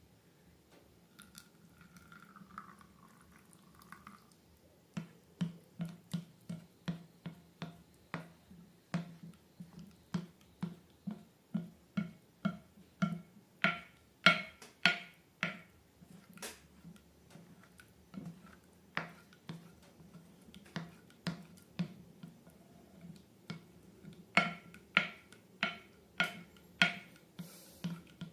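Slime being squeezed and worked by hand, making a run of sharp wet clicks and pops, about two a second, starting about five seconds in with a brief lull in the middle.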